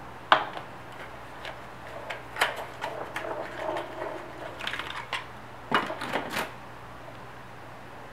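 Clicks, taps and light rustling from handling a small glass vial with a black plastic cap and a small cardboard box. There is a sharp click a moment in, scattered taps through the middle, and a quick run of clicks a little past halfway, over a low steady hum.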